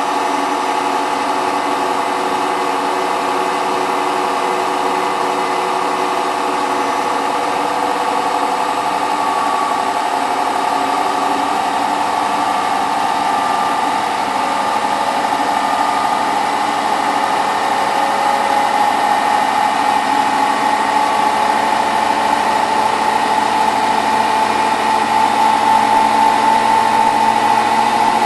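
Hotpoint WT960 washing machine in its final fast spin at 1600 rpm: the drum and motor run at high speed with a steady hum and whine of several tones, growing slightly louder over the last ten seconds or so.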